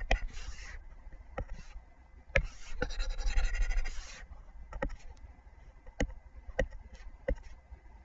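Pen stylus scratching and tapping on a touchscreen as handwriting is written, picked up by the microphone: two short stretches of scratching, one at the start and a longer one about three seconds in, and several sharp separate taps.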